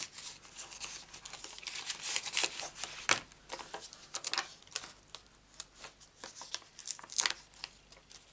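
Paper and card rustling with many small sharp clicks and crackles as a sheet of foam adhesive dimensionals is handled and the dots are peeled off and pressed onto card stock. The loudest crackle comes about three seconds in.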